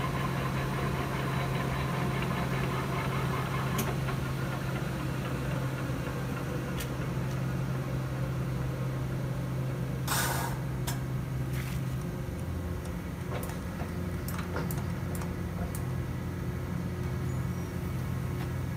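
Dainichi DLG-SHB engine lathe running with its spindle turning at 400 rpm, a steady geared hum from the headstock. About ten seconds in there is a clack at the controls, and then the running note shifts slightly lower.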